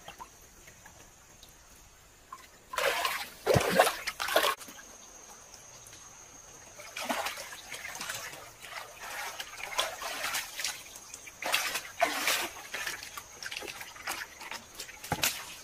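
Hands splashing and sloshing through shallow muddy water to grab fish. A quiet first couple of seconds, then a loud flurry of splashes, then a run of smaller splashes.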